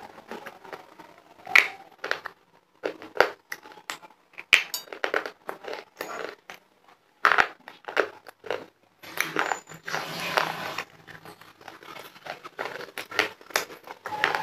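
Close-miked crunching of a hard stick of khadiya (white chalk clay) being bitten and chewed: a run of sharp, irregular crunches, with one longer continuous crunch about nine seconds in.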